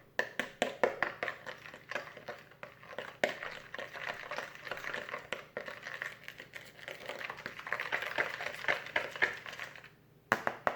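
A spoon stirring a runny mix of clear glue, water and glitter in a bowl, with quick irregular clicks and scrapes against the bowl that stop about ten seconds in. The slime is not yet activated.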